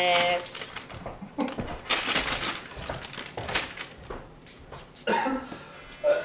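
Plastic shaker bottle of dry pancake mix being handled and set down on a counter: irregular rustling and the hiss of the powder shifting, with a few light knocks.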